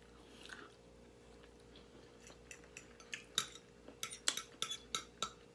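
Soft chewing, then from about three seconds in a quick run of clicks and scrapes of a metal fork against a plate as food is picked up.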